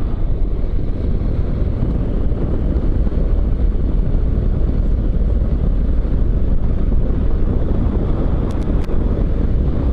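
Honda NC750X motorcycle cruising at steady speed, its engine drone blended with heavy wind rush on the helmet-mounted microphone; a couple of faint ticks near the end.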